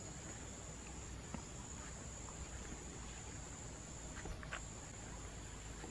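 Insects in the grass droning steadily at one high pitch, faint, over a low rumble, with a couple of faint clicks.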